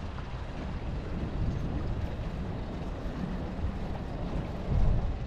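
Wind buffeting the microphone over the rushing noise of a boat under way, with a stronger gust near the end.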